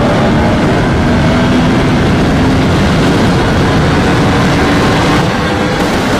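Yamaha R1M's crossplane inline-four running through a one-off aftermarket exhaust while riding, its pitch drifting only a little at a steady cruise.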